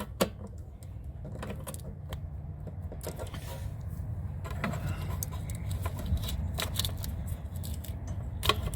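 Light metallic clicks and taps of small parts and hand tools being handled while working on an RV gas water heater's burner assembly, over a steady low rumble.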